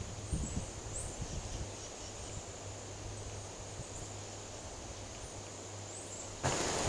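Quiet outdoor woodland ambience: a steady high-pitched drone with a few faint short chirps over it and low, uneven rumbles of wind on the microphone. About six and a half seconds in, the background noise steps up suddenly.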